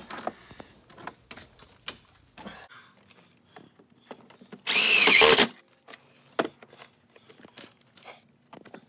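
Cordless driver running for just under a second about halfway through, sinking a 3/4-inch self-tapping screw through the plastic tool box floor into a metal mounting bar. Light clicks and knocks of handling come before and after it.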